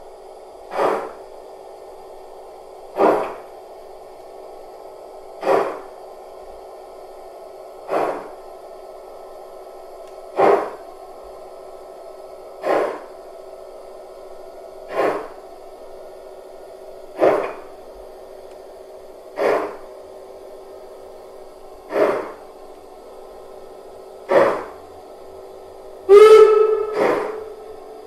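Onboard sound electronics of a Gauge 1 brass model of the DR class 18.2 steam locomotive, played through the model's speaker as it runs slowly: a steam exhaust chuff about every two and a half seconds over a steady hum, with one short whistle blast near the end.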